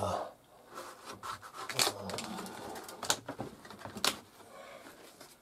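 Fabric rubbing and brushing close against the microphone, with scattered handling noises and a few sharp clicks.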